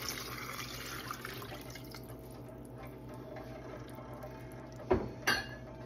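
Water poured from a cup into a pot of mushroom masala, splashing onto the food and tapering off within the first couple of seconds; this is the cooking water for the biryani rice. After it comes a faint steady hum, and then two sharp knocks of the metal ladle against the pot near the end.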